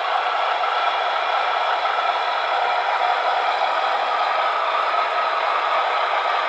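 1/35-scale RC model of an M35 six-wheel-drive army truck running, a steady mechanical whir and rattle with no deep bass.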